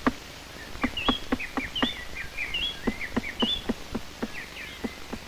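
Black woodpecker chiselling into a tree trunk to cut its nest hole: a run of short, irregular wooden knocks, about three a second. Small birds chirp high in the background.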